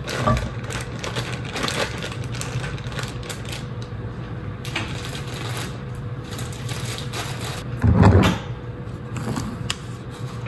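Baby carrots tumbling out of a crinkling plastic bag into the Crock-Pot Express's pot, a dense clatter over a steady low hum. A heavier bump comes about eight seconds in.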